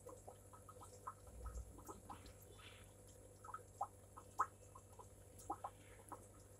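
Faint steady low hum, as from an aquarium air pump, with many short, irregular chirping ticks over it, a few each second.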